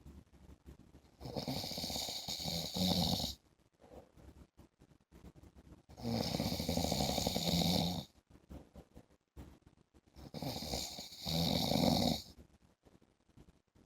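A man snoring in a regular rhythm: three long snores, each about two seconds, coming about every four to five seconds with near-quiet gaps between.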